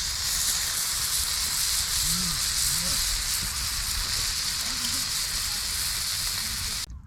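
Steady high-pitched sizzling hiss from cooking over the campfire grill, cutting off suddenly near the end.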